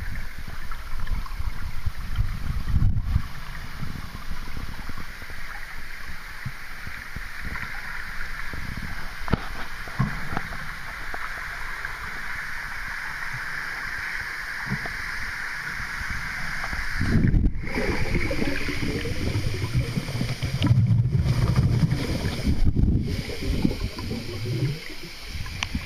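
Muffled water sloshing and gurgling around a camera held underwater, over a steady hiss, with irregular low rumbles and bumps that grow heavier about two-thirds of the way through.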